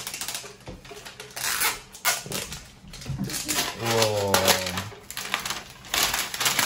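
Printed plastic wrapper being torn and crinkled off a giant plastic toy egg, in a run of short ripping and rustling bursts. A child's voice is heard briefly about four seconds in.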